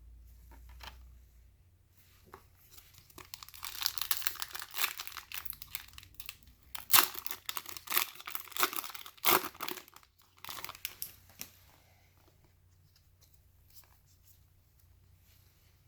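Panini Prizm football card pack wrapper being torn open and crinkled: a run of tearing and crinkling bursts from about three seconds in, sharpest near the middle, stopping about four seconds before the end.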